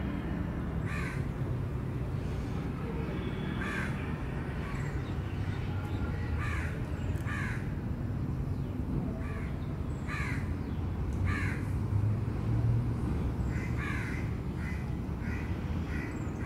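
Crows cawing over and over at irregular intervals, about a dozen short calls, over a steady low rumble.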